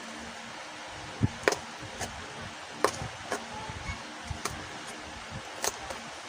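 Handling and opening a Rubik's cube's packaging: a scattering of sharp clicks and taps of cardboard and plastic, the loudest a little over a second in and near the middle, over a faint steady hum.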